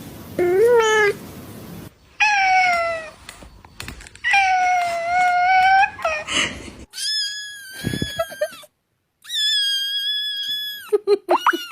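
A cat meowing repeatedly, about six drawn-out meows of half a second to a second and a half each. The first few are lower and bend in pitch, and the later ones are much higher and held level, followed by a few short broken calls near the end.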